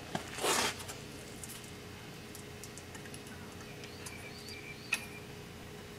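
A short scrape, then a single sharp metallic click near the end, as a tool works the retaining clip off a U-joint bearing cap on a Toyota 4Runner driveshaft yoke.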